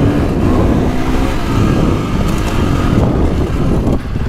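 KTM 450 SX-F Factory Edition's single-cylinder four-stroke engine running under load on a dirt track, its pitch rising and falling as the throttle is opened and closed, with wind buffeting the microphone.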